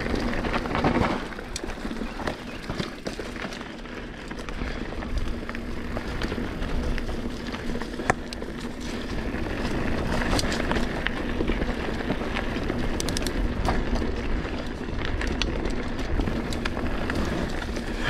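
Mountain bike rolling along a dirt trail: tyre noise over the ground with scattered clicks and rattles from the bike, over a steady low rumble of wind on the microphone.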